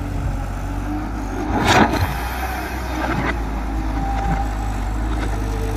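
Tata Hitachi hydraulic excavator's diesel engine running steadily under load while digging and lifting a bucket of soil, with a sharp scrape or clatter about two seconds in and a lighter one about a second later.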